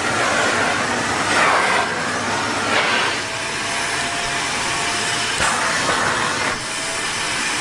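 Vacuum cleaner running: a steady rushing noise, joined about three seconds in by a thin, steady whine.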